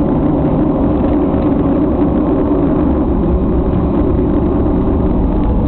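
Steady jet engine and cabin noise of a Boeing 737-800 heard from inside the cabin, a loud, even low rumble with no change in pitch.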